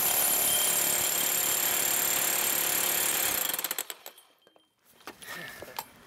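Hammer drill in hammer mode driving a core bit into a concrete step, running steadily, then winding down and stopping a little under four seconds in. This is the starter cut made with the core bit's centre guide bit.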